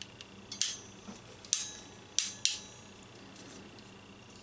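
Ratcheting wire crimper clicking shut on an insulated crimp terminal: four sharp metallic clicks over about two seconds, the last two close together.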